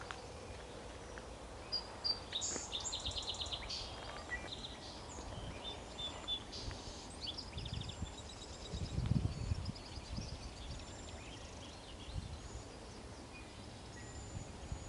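Several songbirds calling and singing, high chirps and short rapid trills clustered in the first half and sparser, fainter chirps later, over steady outdoor background noise. A brief low rumble about nine seconds in.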